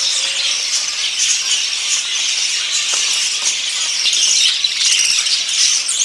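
A flock of caged budgerigars chattering and warbling together, a loud, continuous high-pitched din.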